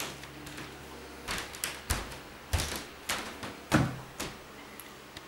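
A string of about six short knocks and bumps over some three seconds, things being handled and set down.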